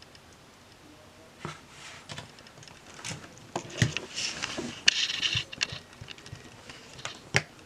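Scattered small clicks and taps, with a short scraping rustle about four seconds in, as a built LEGO toy car is handled and moved on a table.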